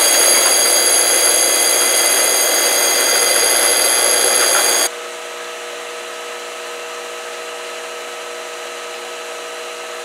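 A 2-horsepower pool pump motor running with a hiss and several steady high whining tones; it runs hot, which the owner puts down to worn bearings. About five seconds in it cuts to a new pool pump running much more quietly, a steady even hum.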